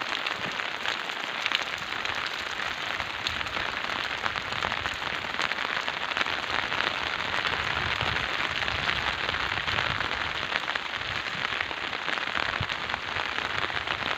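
Steady rain: an even, dense patter of drops.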